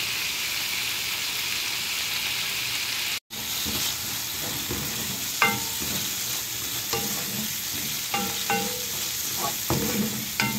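Canned tuna with garlic and onion sizzling steadily in hot oil in a frying pan while a wooden spoon stirs and scrapes it, cooking the oil down. A brief break comes about a third of the way in, and from about halfway on the spoon knocks against the pan several times with short ringing clanks.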